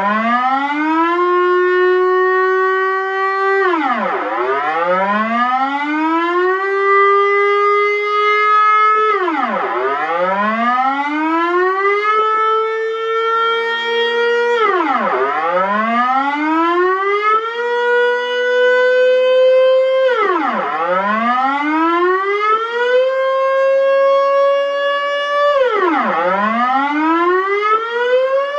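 Dutch civil-defence air-raid siren sounding the alarm signal: a wailing tone that rises over about five seconds, drops back sharply and rises again, about five times. Each rise peaks a little higher than the one before.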